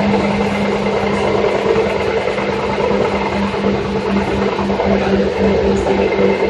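Seibu 2000 series electric train running, heard from inside the car: a steady rumble of wheels and track under a low drone that pulses slightly.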